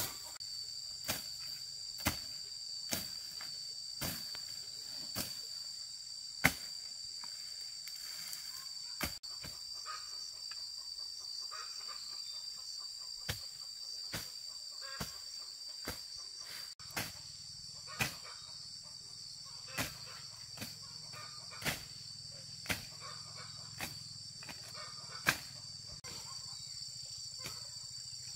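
Insects trilling steadily in a high, even drone, with sharp knocks about once a second.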